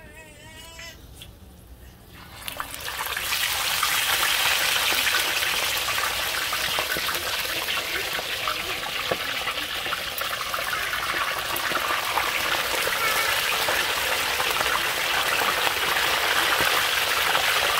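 Hot oil sizzling as whole mojarras fry in a disco pan. It starts suddenly about two and a half seconds in, after a quiet start, then keeps up a loud, steady hiss.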